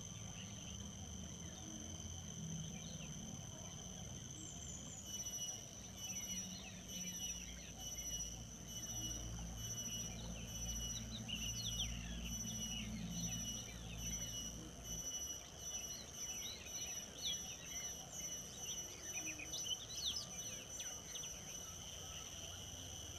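Birds chirping in quick short calls over a steady high-pitched insect drone. The drone turns pulsing from about five seconds in, and the chirping thins out near the end.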